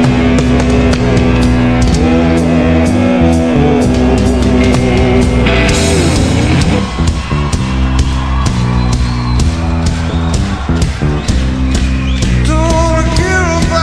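Rock music with electric guitar and a steady drum beat, with singing coming in near the end.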